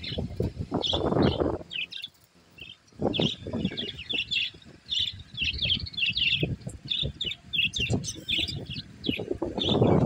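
A flock of budgerigars chirping busily in short high twitters, over low rustling and wing flapping that is heaviest in the first second or two.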